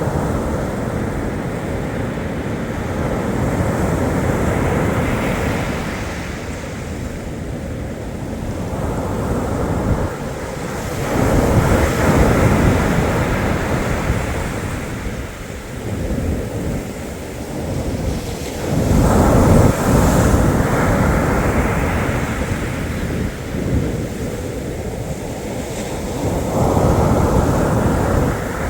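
Black Sea surf washing continuously onto the shore, with three bigger waves breaking about eight seconds apart.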